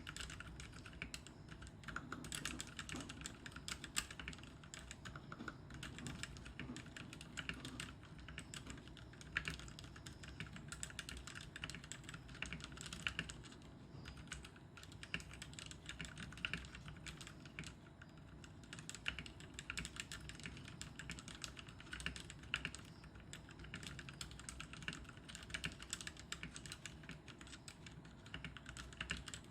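Continuous fast typing on an RK71 mechanical keyboard with lubed Outemu Red linear switches, a dense stream of keystrokes with now and then a louder stroke. Its stabilizers are clipped, band-aid modded and lubed.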